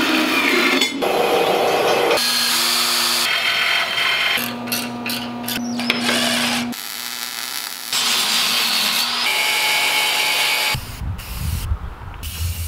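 A series of cuts between shop tool sounds: a band saw cutting steel angle iron, then a cordless drill running a countersink bit into steel angle with a steady motor whine. Near the end come short bursts of aerosol spray paint.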